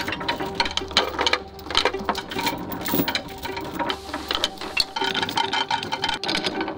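Rusty steel anchor chain rattling link by link over the bow anchor windlass and running down onto a pile of chain on gravel, a rapid, uneven clatter. The windlass motor hums twice for a second or so as it pays the chain out.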